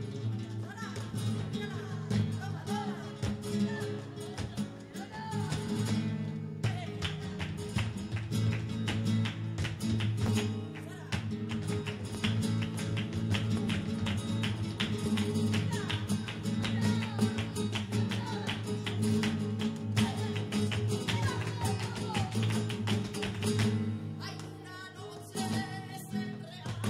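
Live flamenco music: guitar with a wavering sung line, and a fast run of sharp percussive taps through the middle.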